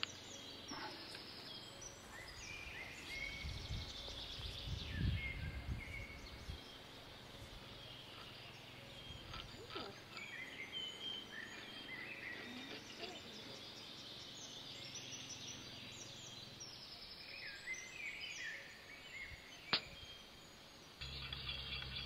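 Several birds singing, with a low rumble from about three to six seconds in and a single sharp click near the end. A steady low hum comes in about a second before the end.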